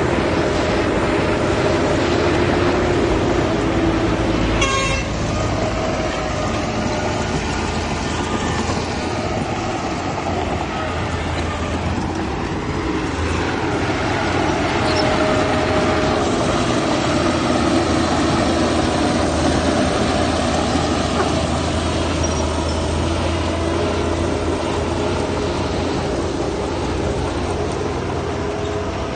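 Heavy diesel earthmoving machinery (dump trucks and bulldozers) running steadily, with a short clicking rattle about five seconds in.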